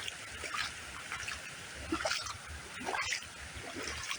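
Water trickling and splashing a few times as a caught perch is let go back into the pond.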